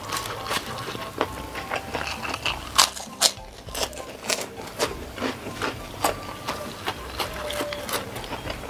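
Close-miked chewing and lip-smacking of a mouthful of rice and stir-fried sausage: irregular wet clicks and smacks, a couple a second.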